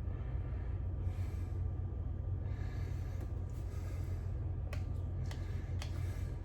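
Steady low hum in the background, with a few faint light clicks about five seconds in.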